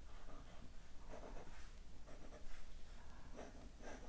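Graphite pencil sketching on paper: light scratchy strokes coming in short runs about once a second.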